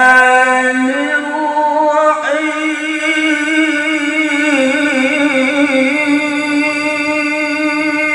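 A man reciting the Quran in the melodic, sung tilawah style, drawing out one long ornamented note with a wavering pitch. The note steps up twice in the first couple of seconds and is then held.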